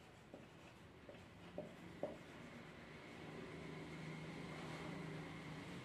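Faint marker strokes on a whiteboard as a word is written, with a few short scratches in the first couple of seconds. A faint steady hum becomes more prominent from about three seconds in.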